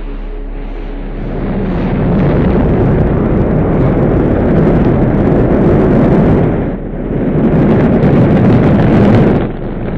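Rocket engines firing at liftoff: a loud, dense rumble that swells in about a second in and briefly drops twice, about two-thirds of the way through and just before the end.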